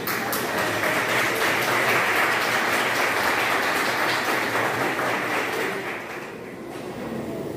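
Audience applauding, a dense steady clapping that dies down about six seconds in.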